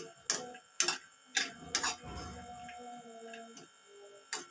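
Steel spoon clinking and scraping against a steel frying pan as mixed nuts are stirred: a few sharp clicks in the first two seconds and another near the end.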